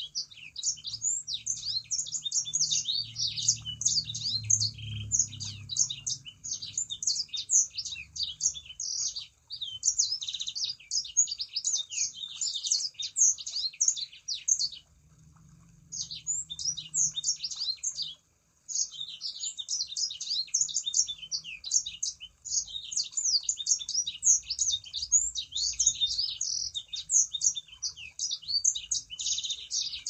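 A sanger songbird singing a long, fast, unbroken run of high chattering chirps, pausing briefly twice near the middle.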